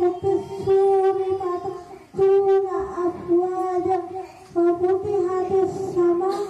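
A child's voice singing into a microphone in long held, wavering notes, phrase by phrase, with short breaths about two and four and a half seconds in.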